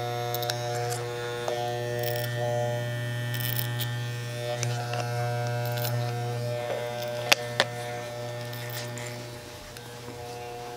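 Electric hair clipper buzzing steadily as it cuts hair around the ear, the buzz dropping away about a second before the end as it is lifted off. Two sharp clicks about three quarters of the way through.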